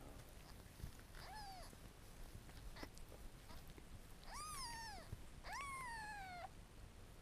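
Newborn Sacred Birman kitten mewing three times: a short mew about a second in, then two louder mews after about four seconds, the last one long and sliding down in pitch.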